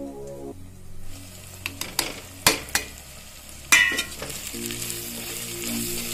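Slotted metal spatula clanking and scraping against an aluminium pressure cooker while spice powders are stirred into frying onions, over a steady sizzle. Several sharp clacks come in the middle, the loudest one ringing briefly.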